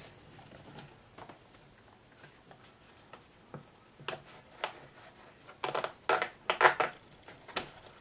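Hands working a heat shield gasket over the engine studs of a leaf blower, plastic and gasket parts knocking against each other. It is quiet at first, then comes a cluster of sharp clicks and rustles in the second half.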